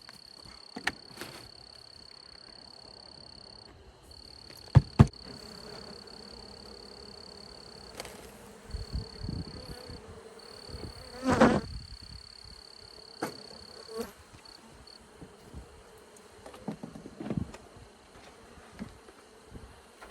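Honeybee swarm buzzing as the bees are tipped out of a plastic tub into a hive box. There are two sharp knocks about five seconds in and a louder thump near the middle. A steady high-pitched insect trill breaks off a few times in the background.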